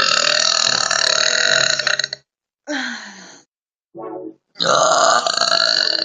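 A young woman burping loudly, four burps cut back to back: a long one lasting about two seconds, a shorter one that falls in pitch, a brief one, and another long one near the end.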